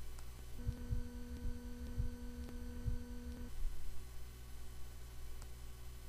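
Low steady electrical hum, with a steady buzzing tone laid over it for about three seconds in the middle, and two faint clicks, one near the start and one near the end.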